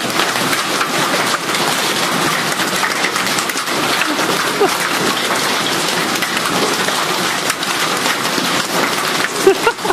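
Heavy rain mixed with hail pelting down: a dense, steady hiss peppered with many small ticks.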